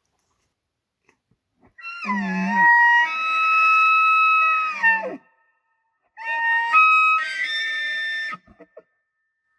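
Bull elk bugling during the rut, twice: a high, whistling call that opens with a low rough growl and holds its pitch for about three seconds, then a second, shorter call that jumps higher partway through. A few short grunts follow near the end.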